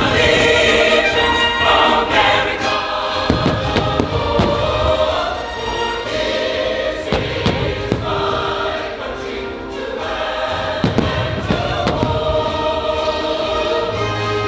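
A choir and orchestra perform a patriotic fireworks-show soundtrack, with repeated firework shells booming and cracking over the music.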